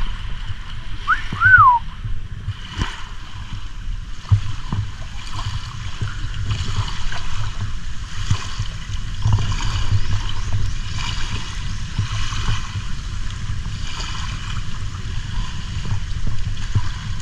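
Rushing wind and water on a moving jet ski: steady low buffeting and spray hiss. A brief whistle-like squeak rises and falls about a second and a half in.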